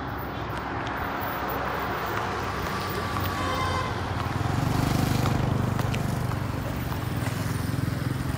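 Street traffic noise: a motor vehicle's engine running close by, its low hum growing louder about halfway through and easing off near the end.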